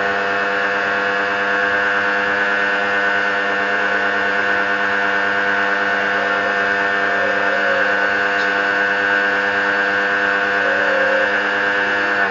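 Lotus electric pressure washer running steadily, its motor and pump giving a constant loud hum with the hiss of the spray over it, then cutting off suddenly at the end as it stops.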